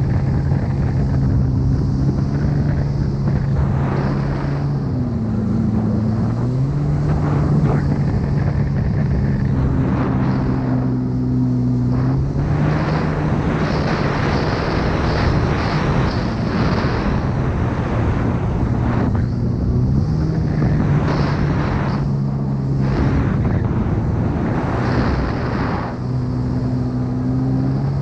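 Two-stroke stand-up jet ski engine running hard, its pitch dropping and rising again a few times as the throttle is eased and opened, with the hiss of spray and wind rushing over it.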